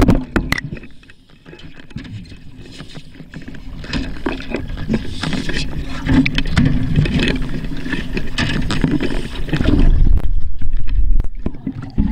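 Muffled underwater noise picked up by a submerged camera: a low rumble with scattered knocks and clicks, loudest about ten seconds in.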